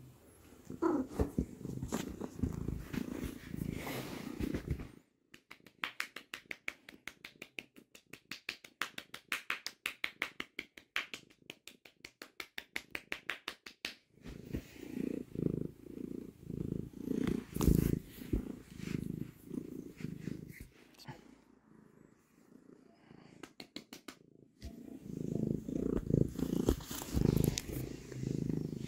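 Sphynx kitten purring close to the microphone in long pulsing stretches. In the middle the purring gives way to a run of quick, even pulses, about five a second.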